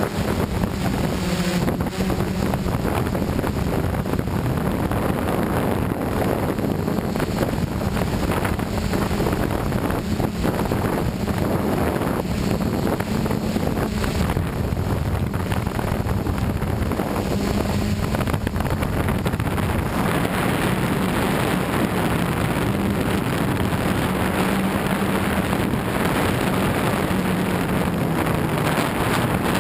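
Motors and propellers of a DJI Flame Wheel F550 hexacopter running steadily in flight, a droning hum that wavers slightly in pitch, heard through heavy wind noise on the onboard camera's microphone.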